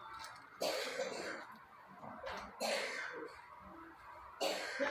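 A person coughing: three short coughs, about two seconds apart.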